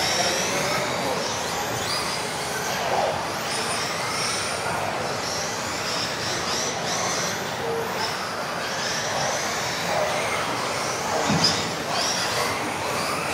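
Several electric RC off-road race cars running together, their motors whining and gliding up and down in pitch over and over as they speed up and slow down around the track.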